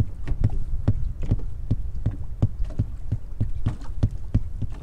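A foot stomping rhythmically on a fishing boat's floor, about four thumps a second. It is an old trick to draw white bass under the boat.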